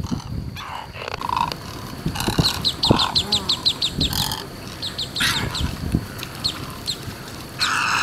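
Great egrets giving low, hoarse, grunting croaks, with a louder burst of croaks near the end as one lands among them. About two seconds in, a quick run of about eight sharp, high notes.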